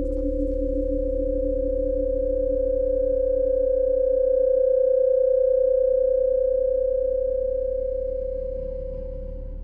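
Soundtrack drone: a single steady pure tone held over a low hum, swelling toward the middle and cutting off abruptly at the end.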